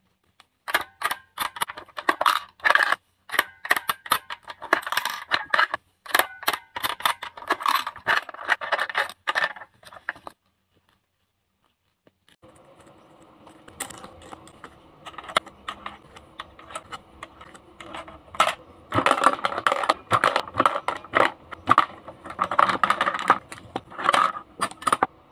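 Hard plastic clicking, clacking and rattling from toy vending machines being worked by hand: plastic coins, buttons and small plastic drink cans and bottles knocking and dropping. The clatter stops for about two seconds near the middle, then resumes over a faint steady hum and grows busiest near the end.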